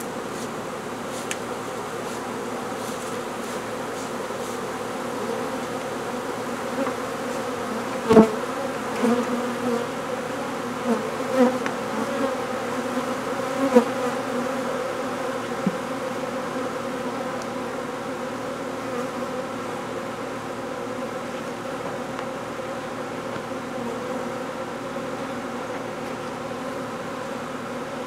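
A honeybee swarm in flight, a dense, steady many-pitched hum. Between about 8 and 14 seconds in, single bees buzz loudly past close by, and one sharp tap comes about 8 seconds in.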